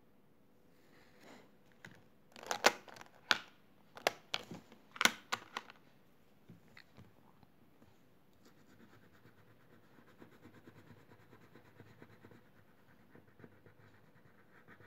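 A quick run of sharp clicks and taps, from about two to six seconds in, as the felt-tip pen is set down and a crayon is taken from its box. From about eight seconds in, a faint steady scratching: a crayon colouring on paper.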